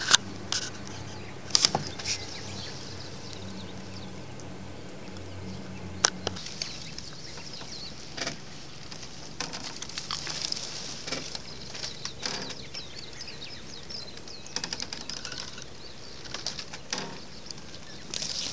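Handling sounds while a caught black sea bream is gripped in a towel and unhooked on a wooden deck over a landing net: scattered clicks, taps and rustling. A low steady hum stops about six seconds in.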